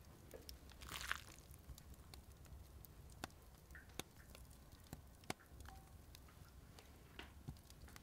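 Faint handling sounds of grated carrot and mushrooms being laid by hand into a glazed clay pot: a soft rustling crunch about a second in, then a few sharp light clicks spaced a second or so apart.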